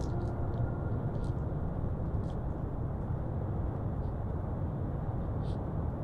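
Steady, low-pitched rumbling outdoor ambience from a wildlife camera trap's microphone, with a few faint, brief high ticks. A tail of background music fades out in the first moment.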